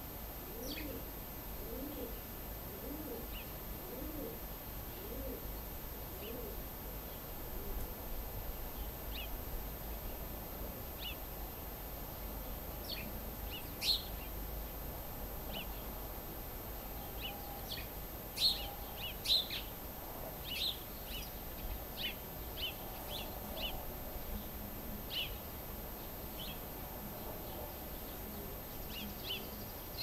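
A dove cooing in a repeated low phrase for the first several seconds, then scattered short high chirps from small songbirds, busier in the second half, over a steady low background rumble.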